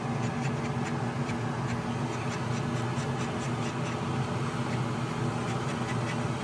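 Red-tinted two-part epoxy being stirred in a cup with a piece of plastic card: light scratching and ticking over a steady low hum.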